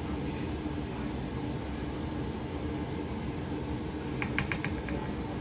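Steady fan-like hum with a faint low tone underneath, and a quick run of about five light clicks about four seconds in.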